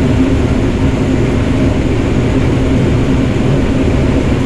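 Combine harvester running steadily while harvesting corn: a constant, loud engine and machinery drone with a steady low hum.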